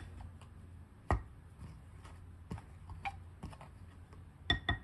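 Bowl scraper stirring dry flour in a glass mixing bowl and knocking against the glass: scattered single taps, then a quick run of clinks with a short ring near the end.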